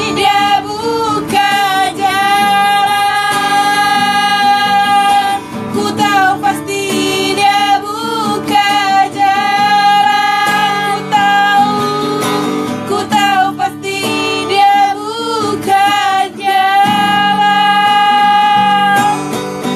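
Two women singing together in long, held notes, accompanied by an acoustic guitar.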